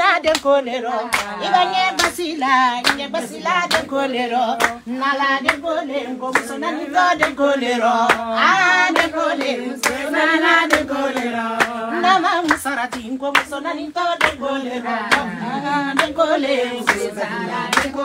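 Group hand clapping in a steady beat under a woman's singing voice that wavers and turns as it holds its notes.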